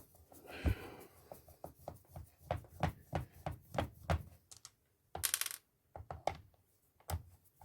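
Irregular light clicks and clinks of small metal parts and tools being handled, with a short rapid rattle about five seconds in.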